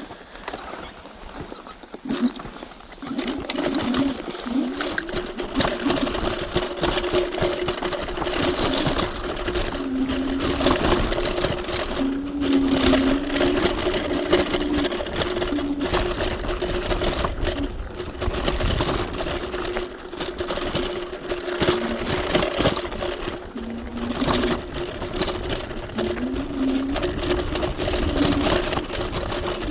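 Electric hyperscooter riding over a rough dirt trail: a motor whine that rises and falls in pitch with speed, over tyre noise and frequent rattles and knocks from the rough ground. It picks up about two seconds in, as the scooter gets moving.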